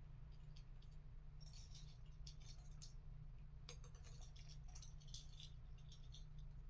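Faint, scattered light clicks and rattles of small Christmas ball ornaments being handled, over a steady low hum.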